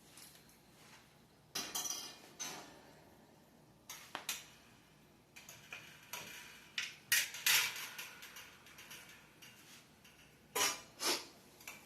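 Shelf racks of a mini greenhouse being fitted into its frame, clinking and clattering metal on metal in irregular knocks with short pauses between.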